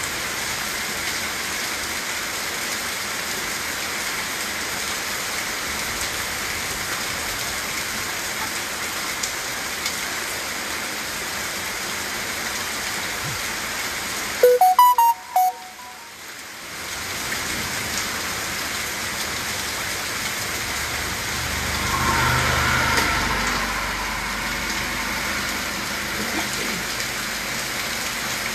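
Heavy storm rain pouring down, a steady hiss on the roof and flooded ground. About halfway through, a quick run of loud beeping tones cuts in and the rain drops out for a second or two. A few seconds later the storm noise swells louder for about two seconds.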